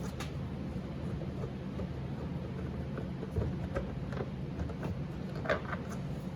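Phillips screwdriver working a screw out of a car door handle: a few faint clicks and small metal scrapes over a steady low hum.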